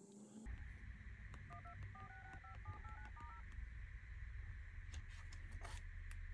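iPhone Phone-app keypad tones: a quick run of about a dozen short two-note touch-tone beeps as digits are tapped on the dialer, over a faint low hum.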